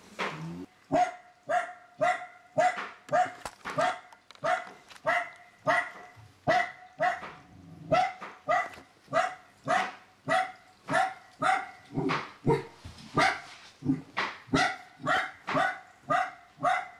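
A dog barking in a long, even run of short barks, about two a second.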